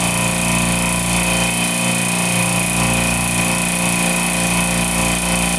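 Reciprocating refrigeration compressor running steadily with the suction blocked off, pumping down: an even machine hum with a steady high-pitched tone over it.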